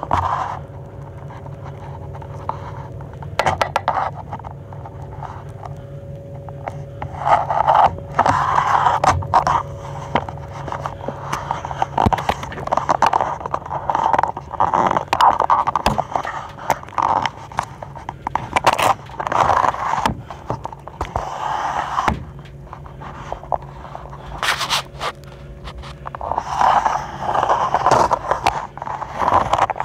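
Irregular scraping and rubbing with scattered sharp clicks, over a steady low hum.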